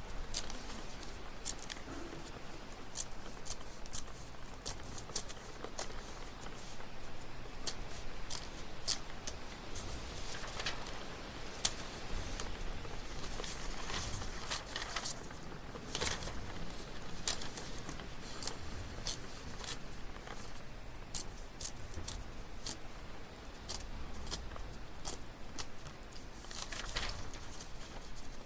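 Library room ambience: scattered light clicks and rustles of paper and small objects over a faint low rumble, with no voices.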